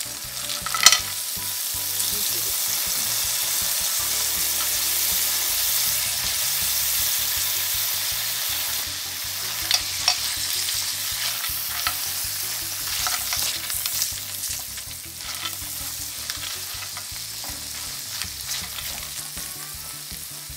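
Clams and grilled prawns sizzling in hot olive oil in an enamelled pan. There is a sharp clatter about a second in as the clams drop in. The sizzling is steady at first and eases off in the second half, with tongs clicking against shells and pan a few times.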